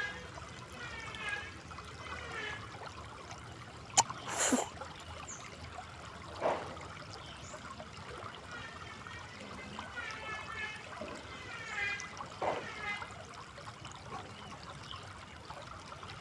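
River water trickling and flowing steadily, with a sharp click about four seconds in and a few brief louder noises.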